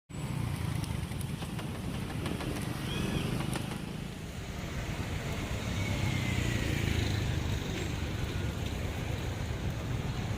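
Street traffic: a steady low rumble of passing motor vehicles, with scattered faint clicks and knocks.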